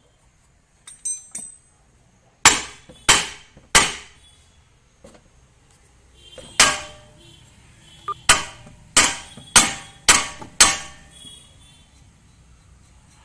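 Hammer blows on the steel front-suspension parts of a car: a few light clinks, then three sharp ringing strikes in quick succession, a pause, and a run of six more strikes.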